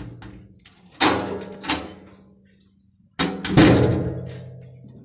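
Steel sliding gate and its electric lock clanging shut twice, about two seconds apart, each metal bang ringing on as it dies away, with a smaller knock just after the first.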